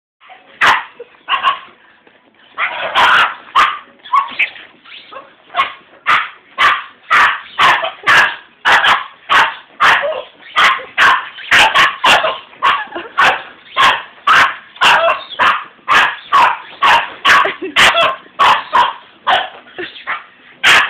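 Boston Terrier barking over and over in short, sharp barks. After a few scattered barks it settles into a rapid run of about two barks a second.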